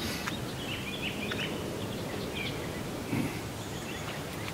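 Outdoor background noise with a few faint bird chirps about a second in, and a brief soft low sound a little after three seconds.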